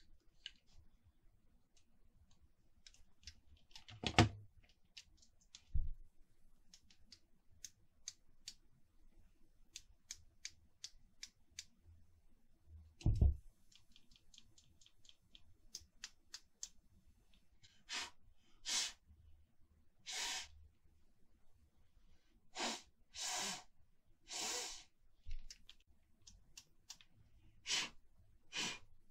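Faint clicks and three dull thumps, then about ten short breathy puffs of air in the second half, each under a second long.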